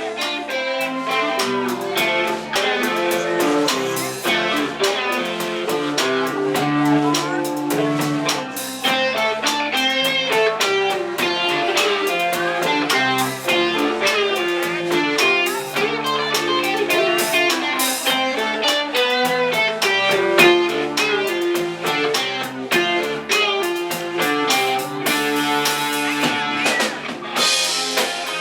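Live rock band playing an instrumental passage: electric guitar lines over a drum kit, with steady drum and cymbal hits.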